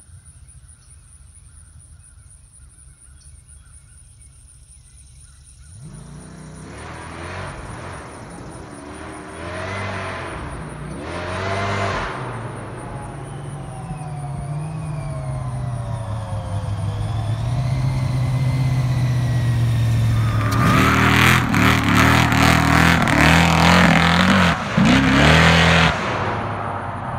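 Supercharged Hemi V8 of a 1979 Ford F-350 pickup. It is faint at first, then its pitch rises and falls as it revs and accelerates toward the microphone, and it is loud over the last several seconds as it comes close.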